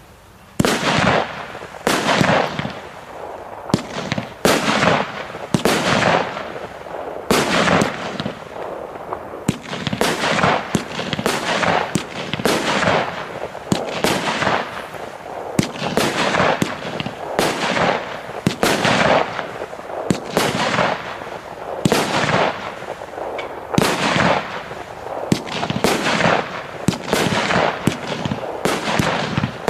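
Prometheus firework going off in a continuous run of shots, about one every half second to a second, each a sharp report that trails off in a hiss.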